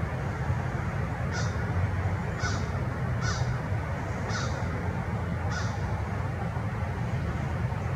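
A bird giving five short, high calls, roughly one a second, over a steady low rumble.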